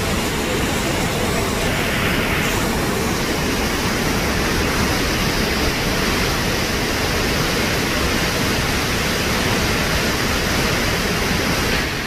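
A tall waterfall pouring into a rocky plunge pool: a loud, steady rush of falling water.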